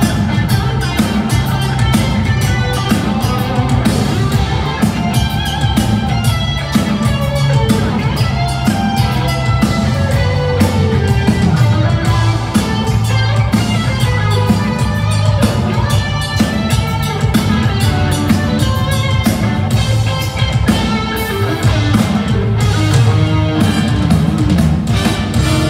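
Live band with horns playing through a stage PA: drum kit and electric guitar over a steady beat.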